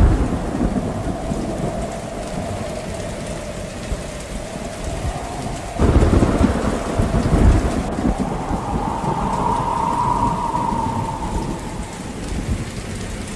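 Rain falling steadily with rolling thunder. A sudden heavier thunderclap breaks in about six seconds in and rumbles on for a second or two.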